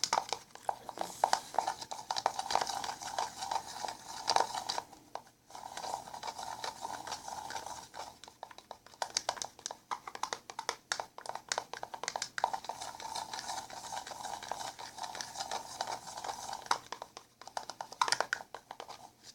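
Slime of glue and contact solution being stirred in a container with a utensil: a busy run of quick scraping and clicking strokes that pauses briefly a few seconds in.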